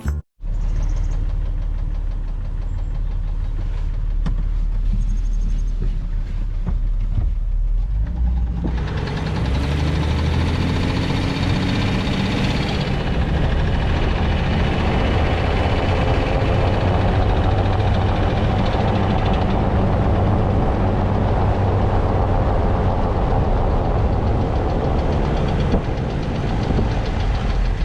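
Steady low rumble of a motor vehicle running, with a louder hiss joining about eight seconds in.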